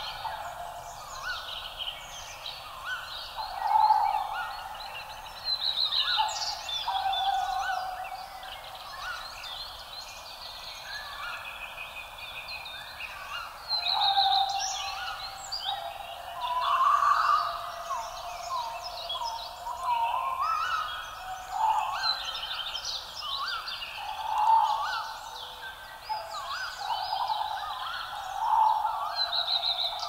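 Many birds calling at once: overlapping chirps, whistles, trills and warbled calls, with louder bursts every few seconds over a faint steady background.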